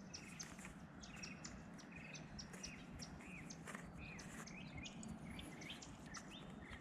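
Faint birds chirping: many short, high notes and a few curving calls, scattered throughout, over a low steady background hiss.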